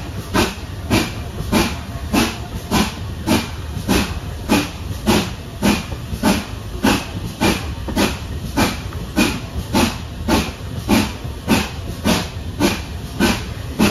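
Steam locomotive working hard, its exhaust beats coming steadily at a little under two a second over the rumble of the train, heard from a carriage of the train it is hauling. The locomotive is GWR Manor class 4-6-0 No. 7812.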